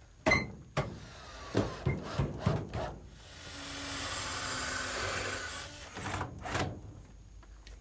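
Wooden knocks and clunks as a slatted cedar bench is handled onto its supports, then about three seconds of wood scraping along wood as the bench slides into position, swelling and fading, followed by a couple more knocks.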